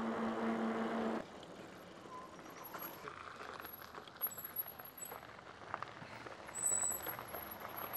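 Mukkpet Suburban e-bike's rear hub motor humming steadily, cut off suddenly about a second in. Later, faint short high-pitched squeals from its disc brakes, the clearest near the end, a squeak that can be cured by cleaning the brake discs with isopropyl alcohol.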